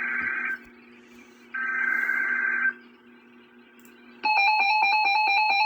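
Emergency Alert System data header: two short bursts of harsh digital buzzing about a second apart. About four seconds in, the loud, steady alert attention tone starts, the signal that a new warning is about to be read.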